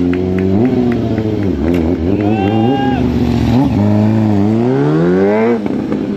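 Sport motorcycle engine revving up and down repeatedly during stunt riding, with a long rising rev near the end that cuts off sharply.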